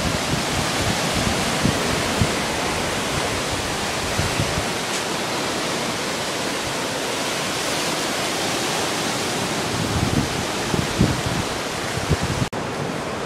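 Ocean surf breaking and washing up the shore: a steady rushing noise, with a few low thumps on the microphone about ten seconds in.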